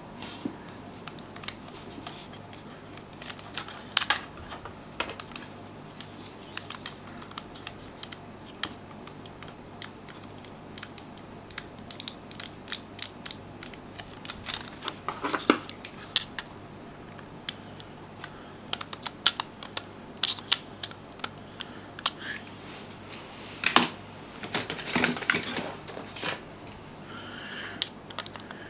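Irregular small plastic clicks and taps from a Logitech G600 mouse being taken apart by hand, its casing and internal parts knocking and snapping as they are pried loose, with a few busier clusters of clicks.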